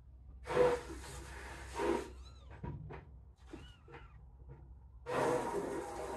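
Young kittens mewing: several short, high-pitched mews that rise and fall, with two brief louder noisy sounds about half a second and two seconds in. A steady hiss starts about five seconds in.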